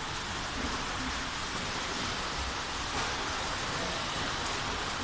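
Steady, even wash of water noise in a swimming pool.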